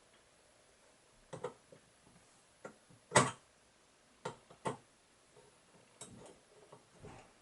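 Scattered light clicks and taps of a screwdriver and small screws while a graphics card's cooler is being unscrewed, about eight in all, the loudest about three seconds in.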